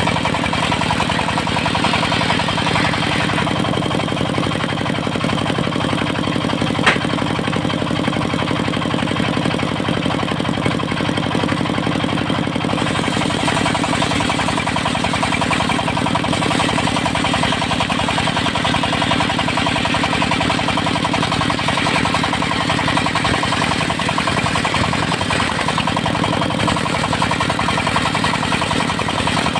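Diesel engine of a travelling circular-saw mill running steadily. A single sharp click comes about seven seconds in.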